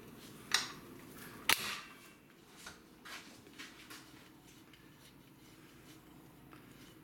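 Hand tool and parts of a Stihl MS 462 chainsaw clicking and clinking as the saw is taken apart: two sharp clicks about half a second and a second and a half in, then a scatter of lighter ticks.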